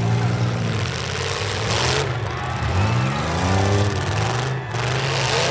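Demolition derby truck engines revving hard, the pitch climbing and dropping twice, with two short bursts of noise, one about two seconds in and one near the end.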